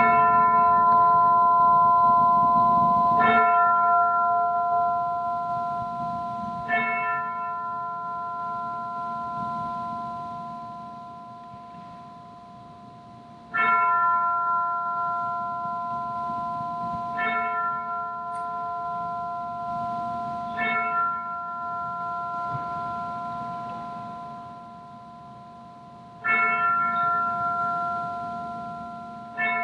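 A ringing bell tone, struck about eight times at uneven intervals of three to seven seconds. Each strike rings on and fades slowly until the next one.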